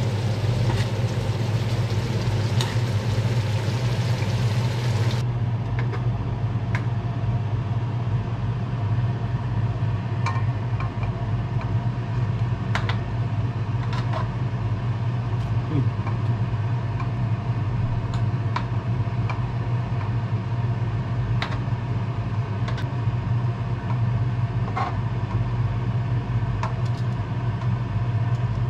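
A steady low mechanical hum runs throughout. Over it, butter sauce sizzles in the pan for the first five seconds or so. After that a metal spoon clicks and scrapes against the pan and plate now and then.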